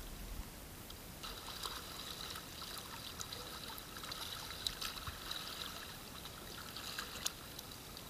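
Water gently lapping and trickling among shoreline rocks, with a few faint small clicks.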